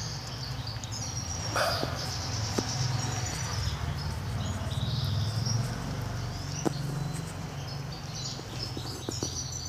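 Small birds chirping in short repeated high calls that come and go, over a steady low rumble, with a few sharp clicks.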